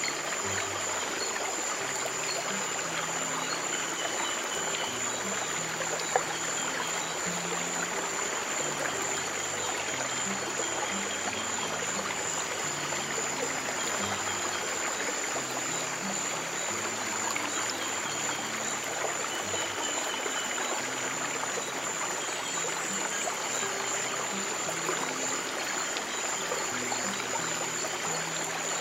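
Water running steadily in a stream, with soft, low music notes held under it that change every second or two. A thin, steady high-pitched tone sits above it all.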